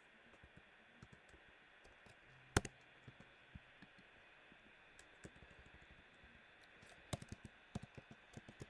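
Faint keystrokes on a computer keyboard as a word is typed, deleted and retyped. The keys come scattered at first, with one louder click about two and a half seconds in, then in a quicker run near the end.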